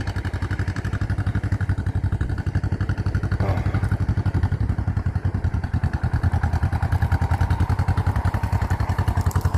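Small tractor's engine running steadily with a rapid, even firing beat as it is driven in one of the higher of its five forward gears, growing gradually louder.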